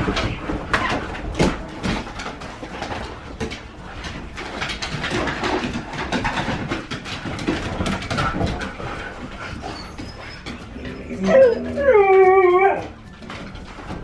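Siberian huskies romping, their paws and claws scrabbling and clicking on the floorboards and couch. Near the end one husky gives two loud whining howls, the second longer and falling away in pitch.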